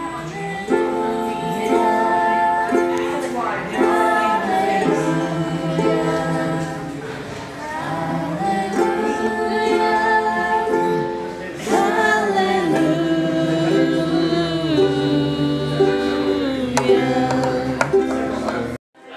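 Music: a song with singing over a strummed string accompaniment. It cuts out briefly just before the end.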